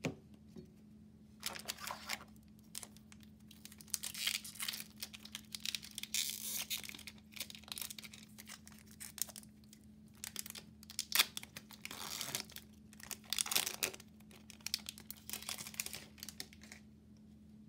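Foil wrapper of a Magic: The Gathering collector booster pack being crinkled and torn open by hand, in several separate bursts of crackling.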